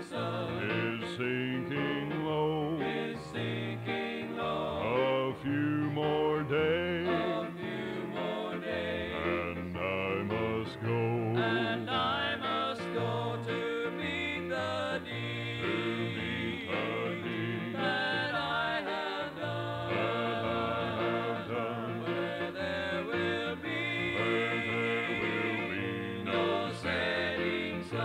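Gospel vocal group singing a hymn in harmony with acoustic string accompaniment, played from an old cassette tape with little treble.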